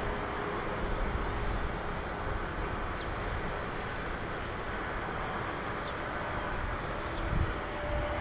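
Steady outdoor harbour and shipyard background noise, with faint steady machine hums and a low rumble that swells briefly near the end.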